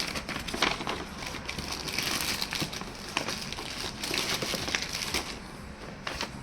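Packaging crinkling and rustling as it is handled, in irregular crackly bursts for about five seconds, then a single sharp click near the end.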